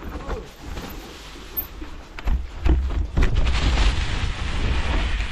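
Wind buffeting the microphone during a mountain-bike trail ride, a low rumble that gets louder about two seconds in, with a few short knocks and rattles from the bike.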